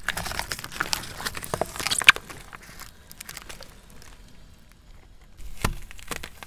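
Car tyre rolling onto a row of filled paper cups and crushing them one after another: a quick run of crackles and pops, the sharpest about two seconds in. After a quieter stretch comes a single heavier crunch near the end.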